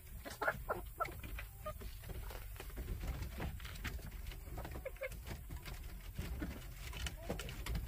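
A flock of chickens moving about in a coop, with a few short soft clucks and scattered clicks and scuffs of feet on the wire floor.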